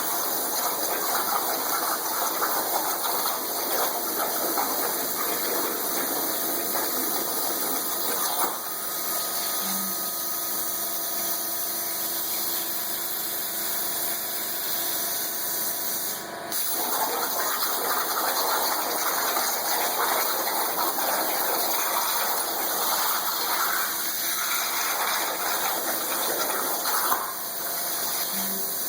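Plasma cutting torch cutting under water, a steady hissing, bubbling rush. The rush stops about eight seconds in, leaving a steadier hum with faint whining tones. It starts again at about seventeen seconds and stops again near the end.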